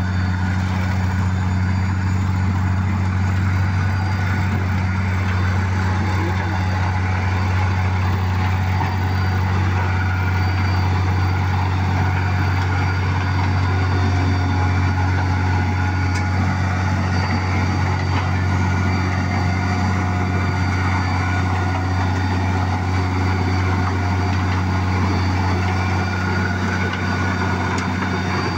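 Heavy diesel engines running steadily under load as a Wirtgen WR 240 soil recycler works the road, with the water tanker truck coupled ahead of it: a constant deep engine drone with faint steady high whines over it.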